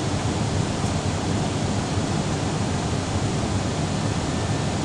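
Steady rush of an Airbus airliner's cabin noise in flight, engine and airflow heard from inside the cabin at a window seat.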